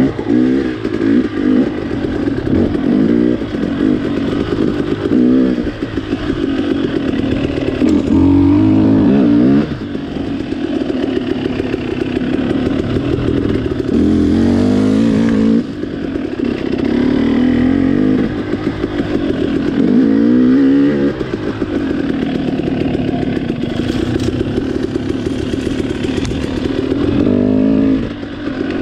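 Off-road dirt bike engine being ridden, its note rising again and again as the throttle is opened, with short drops between the pulls.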